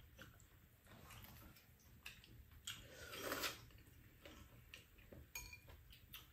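Quiet eating: scattered light clicks of metal chopsticks against bowls, with one brief, louder noisy sound about three seconds in.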